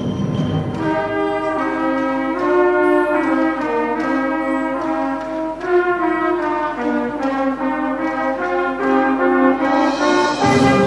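Brass band playing a moving melodic passage in chords. The bass drops out about a second in and comes back near the end as the band swells louder.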